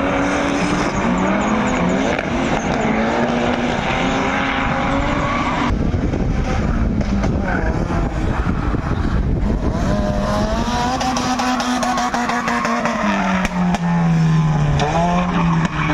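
Drift car's engine revving hard, its pitch swinging up and down as the throttle is worked through a slide. For a few seconds in the middle the engine tone fades into a rushing noise, then comes back, dipping lower near the end before climbing again.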